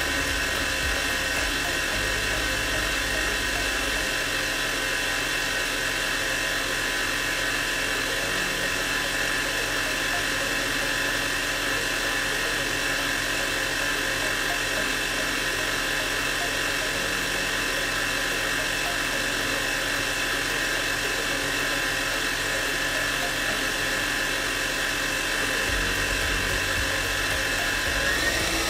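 Electric mixer motor running steadily at speed, beating the cheesecake filling or cream, with a steady high whine that shifts in pitch near the end.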